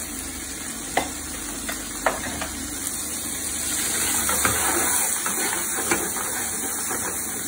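Diced pancetta sizzling in olive oil in a nonstick frying pan, stirred with a wooden spatula that taps and scrapes against the pan a few times.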